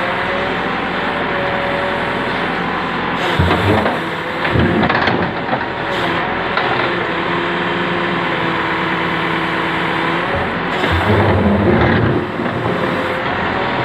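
Diesel engine of a heavy earth-moving machine running steadily, loading up and getting louder three times, about three seconds in, around five seconds and around eleven seconds, as the machine works.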